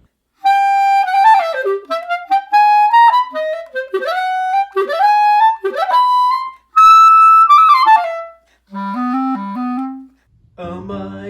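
Solo clarinet being practised: a fast passage of quick runs that sweep downward several times, then a held high note and a short lower phrase, broken by brief pauses.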